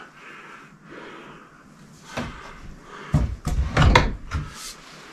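Short knocks and clatters of PVC pipe and fittings being handled. The first comes about two seconds in, followed by a cluster a second later and one more near the end.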